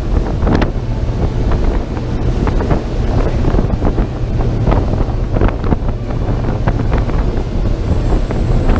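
Otam 65 HT motor yacht running at high speed: a deep steady engine rumble under wind buffeting the microphone and the rush and irregular slaps of water along the hull.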